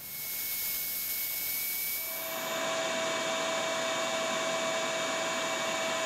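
Bandsaw running steadily while cutting a thin board, a constant whir with a steady tone added about two seconds in.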